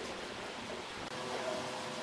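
Steady low background hiss, with a faint steady hum coming in about a second in.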